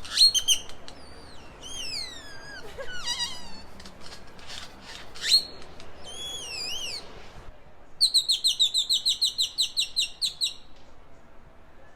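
Great-tailed grackle calling: a string of varied whistled notes, several sliding steeply downward, one sharp rising note, then a fast run of about fifteen short repeated notes over two and a half seconds near the end.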